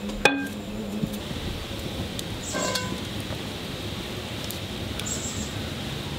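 Steady hiss of steam and boiling water from a pot steamer cooking batter in leaf cups. A sharp, ringing clink comes near the start and another about two and a half seconds in.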